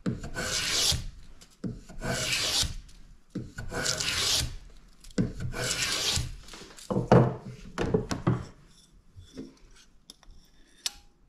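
Small violinmaker's plane shaving a wooden bass bar in about five long push strokes, one every second and a half or two, each a rasping hiss of wood being cut. The plane is set for a heavier cut to thickness the bar. After the strokes comes quieter handling, with a click near the end.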